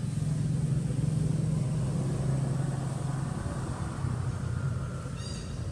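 Low, steady motor-vehicle engine hum whose pitch sinks slightly about two seconds in, with a brief high-pitched squeak near the end.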